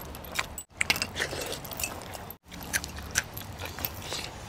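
A man chewing and biting into mouthfuls of mutton close to the microphone, with scattered short mouth clicks. The sound cuts out briefly twice.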